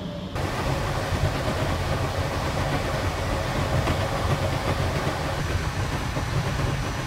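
Running noise inside a moving PKP Intercity passenger train carriage: a steady low rumble under an even rush of wheel and air noise. A faint thin high tone joins about five seconds in.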